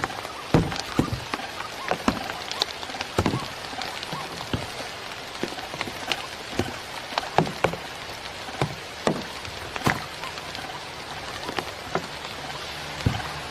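Irregular sharp taps and knocks, a few each second, over a steady hiss.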